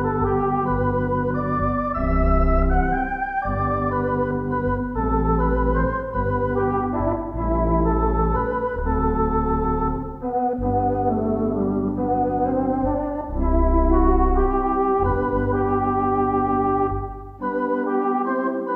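Theatre organ playing a silent-film comedy accompaniment: sustained chords with a wavering tone over a deep bass line that moves about once a second. The bass drops out near the end, leaving only the higher chords.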